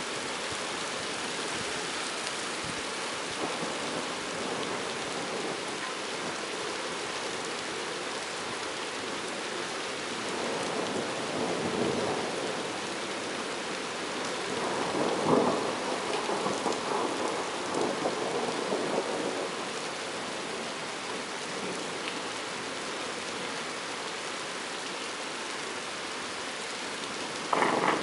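Steady rain falling during a thunderstorm, with thunder rumbling in two swells about ten and fifteen seconds in, the second one louder. A sudden louder noise comes in just before the end.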